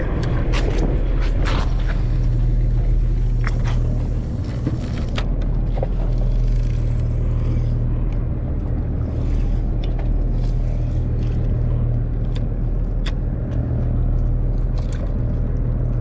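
Fishing boat's engine running with a steady low drone, with scattered light clicks over it.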